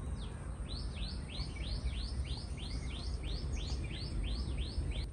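A bird calling in a rapid run of short, high, evenly repeated notes, about three a second, over a steady low rumble.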